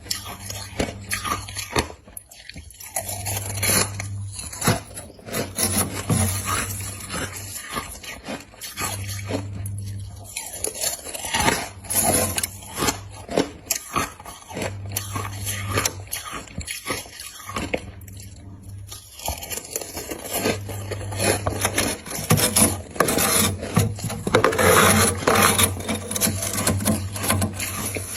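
Ice being bitten and chewed close to the microphone: a dense run of sharp crunches with gritty scraping and grinding between them.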